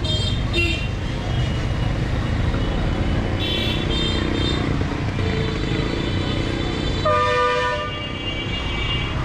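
Street traffic rumbling steadily. A vehicle horn honks once for almost a second about seven seconds in, and fainter high-pitched horn toots sound a couple of times before it.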